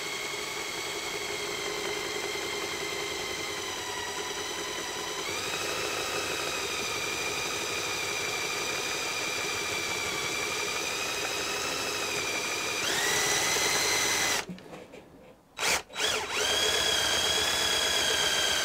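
Cordless drill running a 5.5 mm bit through the pilot hole in a steel strimmer shaft, with a steady whine. The whine rises in pitch about five seconds in and gets louder near thirteen seconds. The drill stops about a second later, gives a couple of short bursts, then runs steadily again.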